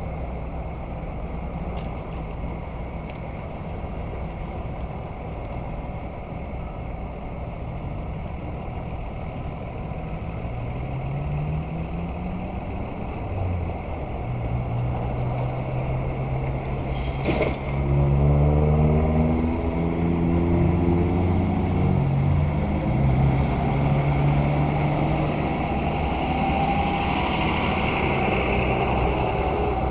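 Street traffic with a heavy vehicle's engine pulling away, its note rising in steps like gear changes from about a third of the way in. A sharp knock comes just past the middle, and after it the engine runs louder.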